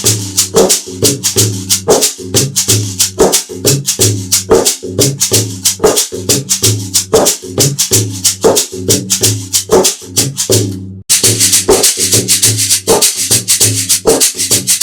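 A shaker played in a steady rhythm, about four strokes a second, over backing music with a sustained low bass part; both drop out briefly about eleven seconds in, then resume.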